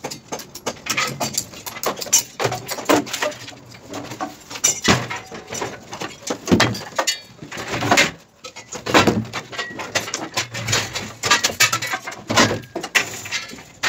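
Irregular knocks, bangs and scrapes of wooden plywood formwork panels being pried off a cured concrete wall and handled.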